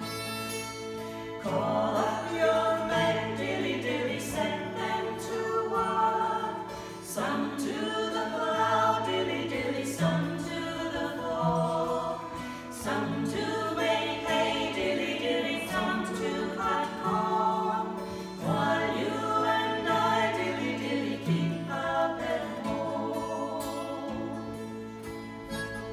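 Acoustic guitar accompanying several voices singing a song together. A harmonica plays over the guitar at the start, the voices come in about a second and a half in, and the harmonica returns near the end.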